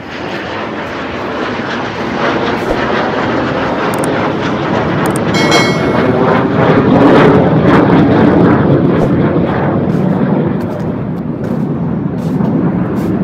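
Military jet flying overhead, a steady rushing roar that builds to its loudest about seven seconds in and then eases slightly.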